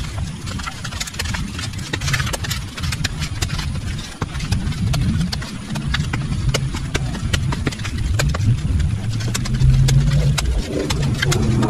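Small engine running, its speed rising and falling, with many sharp clicks and knocks over it.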